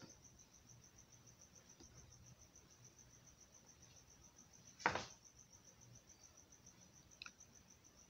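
Faint, steady, rapid high chirping of an insect. A single sharp click about five seconds in is the loudest sound, and a faint tick comes near the end.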